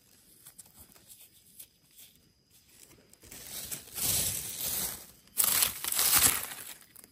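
Dry leaf litter and soil rustling and crackling as a hand brushes and scrapes the ground. The sound comes in two loud bursts, one starting about three seconds in and a second, louder one just after five seconds.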